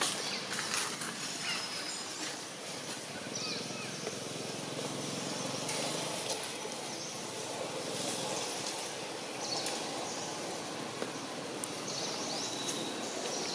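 Outdoor background noise: a steady low rumble with a few short, high chirps, some around the middle and a couple near the end.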